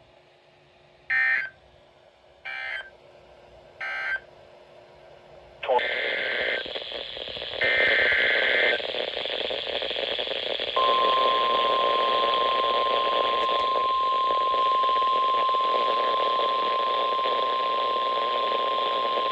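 NOAA Weather Radio Emergency Alert System signalling. Three short digital data bursts about a second apart are followed by steady radio hiss and two longer SAME data bursts. Then the steady single-pitch 1050 Hz warning alarm tone sounds, the signal that a warning message is about to be broadcast.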